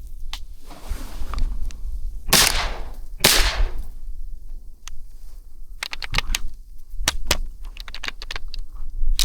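Two shotgun blasts about a second apart, each trailing off, followed a few seconds later by a quick series of sharp metallic clicks and knocks from the gun, which has locked up. Wind rumbles on the microphone throughout.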